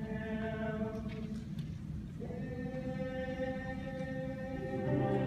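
School choir singing, holding long sustained chords. The chord changes about two seconds in, and the singing grows louder near the end.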